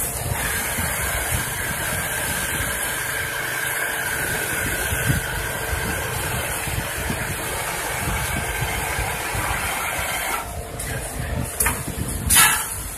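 Richpeace L1500 high-speed multi-needle quilting machine running as it quilts a comforter: a steady mechanical noise with a faint steady tone. Near the end the sound changes, with a short loud burst of noise.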